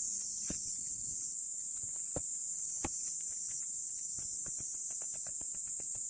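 Pieces of split firewood knocking together as they are stacked: three sharp knocks in the first three seconds, then a run of lighter clicks. A steady high-pitched insect chorus runs underneath.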